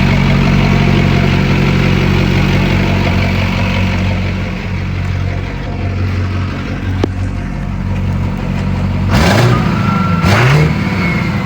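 Freshly rebuilt LBZ Duramax 6.6-litre V8 turbo-diesel running steadily at idle just after its first start, with two short louder surges near the end.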